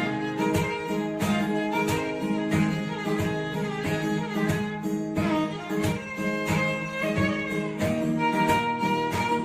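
Background music: instrumental with a bowed string melody over plucked guitar and a steady beat.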